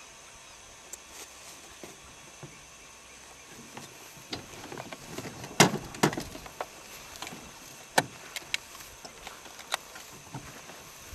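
Scattered clicks and knocks from the pilot handling gear in a gyroplane's open seat before engine start, the loudest a little past the middle, over a faint steady hiss.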